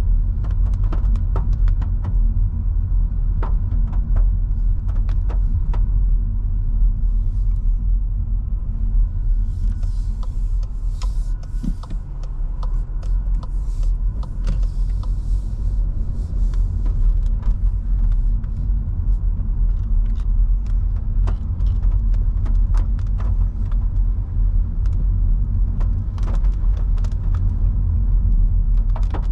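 Cabin noise of a Skoda Scala 1.5 TSI four-cylinder turbo petrol hatchback driving on a wet road: a steady low engine and road rumble, with scattered sharp ticks throughout. A stretch of high hiss comes in around the middle while the windscreen wipers sweep.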